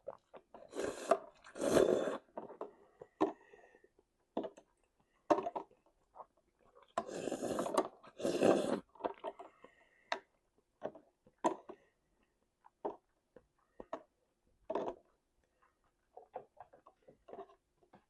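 Close-up eating sounds: scattered wet mouth clicks and chewing noises, with two pairs of louder, noisy rushes of air about a second in and again about seven seconds in.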